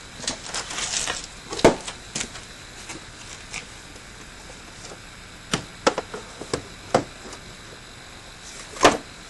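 Scattered clicks and knocks of the plastic air intake assembly being handled and fitted onto the engine. A sharp knock comes under two seconds in, a cluster of knocks about halfway, and another loud knock near the end.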